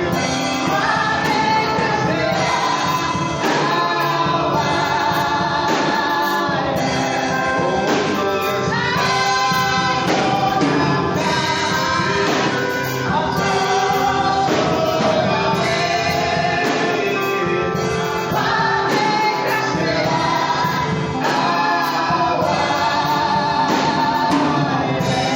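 Church choir singing gospel music with instrumental accompaniment and percussion.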